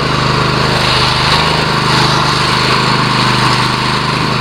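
Riding lawn mower engine running steadily as the mower drives along.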